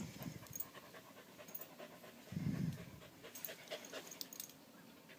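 A frightened beagle panting hard, a sign of stress, with a louder low burst of breath about two and a half seconds in and faint small clicks throughout.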